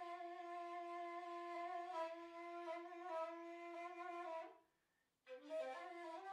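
Quiet background music: a woodwind instrument playing long held notes. It breaks off for under a second about four and a half seconds in, then comes back.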